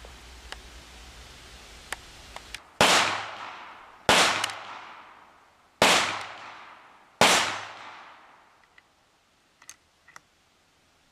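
Four gunshots about a second and a half apart, each with a long echoing tail, after a few faint clicks.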